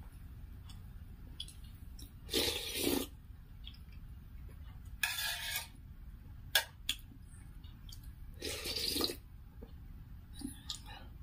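Chicken soup being slurped off a metal spoon: three slurps, a few seconds apart. A couple of sharp clicks of the spoon against the brass bowl fall between the second and third slurps.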